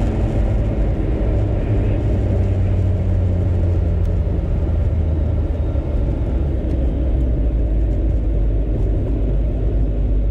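Steady low rumble of a moving motor vehicle, cutting off suddenly at the end.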